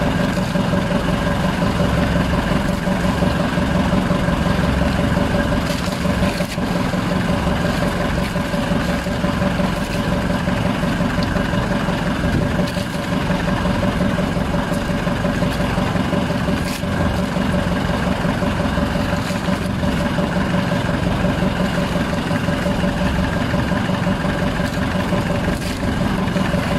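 Outrigger boat's engine running steadily, an even hum with a constant low tone and a fainter higher one.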